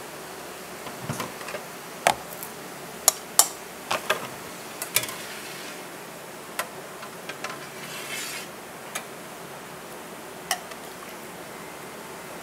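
A metal ladle clinking and knocking against a large aluminium soup pot and a ceramic bowl as soup is ladled out, with about a dozen scattered sharp clinks over a steady background hum.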